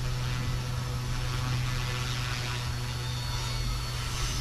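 FW200 RC helicopter in flight: a steady low rotor hum, with a faint high motor whine about three seconds in.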